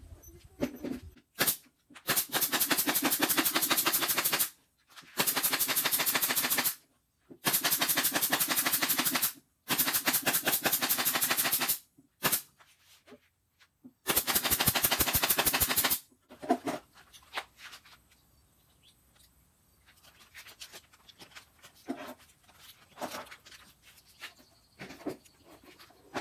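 A power screwdriver driving screws into the subwoofer cabinet in five bursts of about two seconds each, each a fast, even rattle, followed by quieter knocks and clicks of parts being handled.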